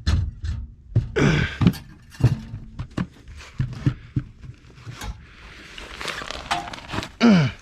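Irregular knocks, clunks and scrapes of hand work with tools and metal fittings around a water heater. Near the end there is a brief, loud falling vocal sound, like a groan.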